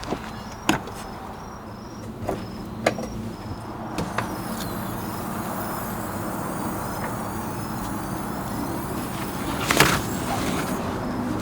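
Several sharp clicks and knocks over a steady background hiss, the loudest knock near the end, with a faint high pulse repeating about twice a second in the first half.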